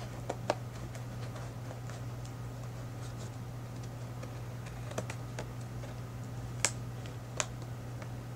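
A few sharp clicks and taps from fingers handling and picking at a small cardboard headphone box to open it, the loudest about two-thirds of the way through. A steady low hum runs underneath.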